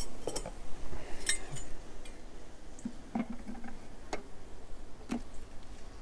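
A metal hive tool prising and tapping at wooden hive frames, giving a handful of sharp clicks and knocks at uneven intervals.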